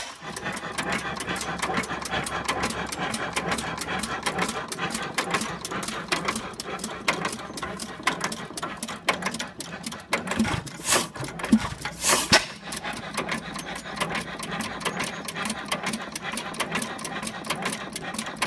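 6 hp Associated hit-and-miss gas engine running, with a fast, steady mechanical clicking, about five or six clicks a second. Two louder beats stand out a little past the middle.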